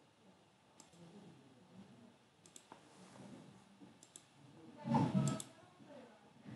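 Small sharp clicks of a metal drafting compass being handled and adjusted, its pencil and point tapping on card over a wooden table. A louder knock and rustle of handling comes about five seconds in.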